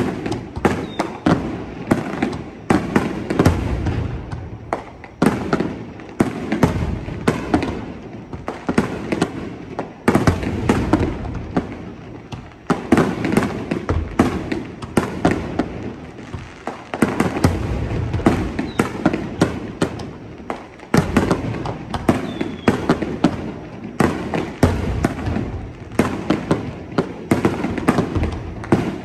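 Fireworks display in a continuous barrage: many sharp shell bursts a second with crackling, layered over a heavy low rumble.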